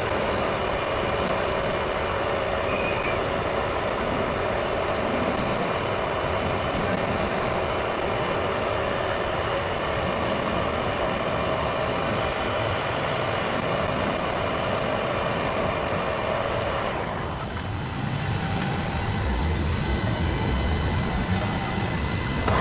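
Metal lathe running steadily while the built-up weld on a small shaft is turned back down, a mix of fixed tones and dense cutting noise; about two-thirds of the way through the sound dips with a falling pitch, then picks up again.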